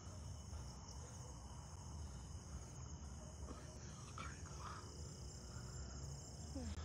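Crickets chirring in a steady high-pitched drone over a faint low rumble.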